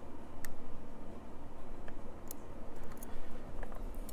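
Scattered small metallic clicks and ticks of a lock pick working the levers of an Ingersoll CS 10-lever lock, coming irregularly over a low steady hum.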